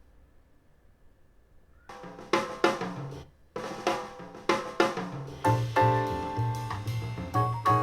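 Music playing from a DIY Bluetooth boombox with two Dayton Audio ND90 full-range drivers. It is quiet for about two seconds between tracks, then a new track opens with drum-kit hits, and a bass line and fuller band come in about five seconds in.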